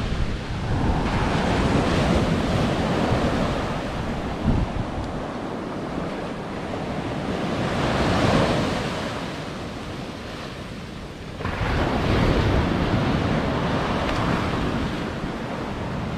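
Ocean surf breaking and washing up a sandy beach, swelling and ebbing every few seconds, with one wave surging in suddenly about two-thirds of the way through. Wind buffets the microphone.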